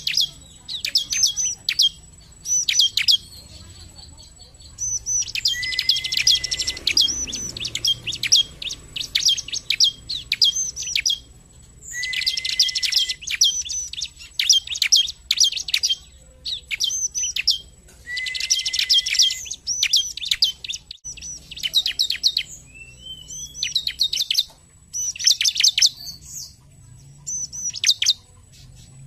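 Bar-winged prinia (ciblek) singing in quick bursts of sharp, high chirps separated by short pauses. Several phrases open with a brief, lower held note before the rapid chirping.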